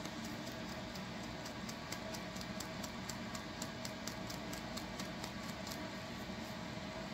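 Fingernails scratching a dry, flaky scalp through coily natural hair: quick, even scratching strokes about five a second, fading out near the end, over a steady hiss.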